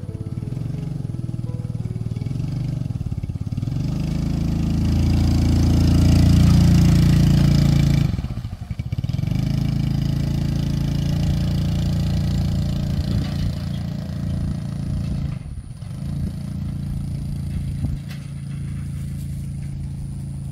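A motor vehicle engine running close by. It grows louder about five to eight seconds in, drops away briefly, then runs on steadily with a couple of short dips near the end.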